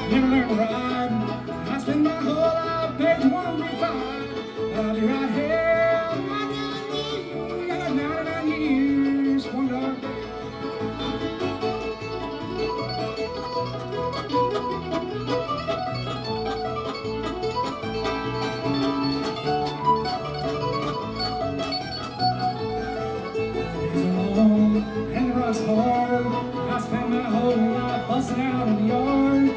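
Live bluegrass band playing a tune, with fiddle, guitar, mandolin and bass together in a steady, continuous ensemble.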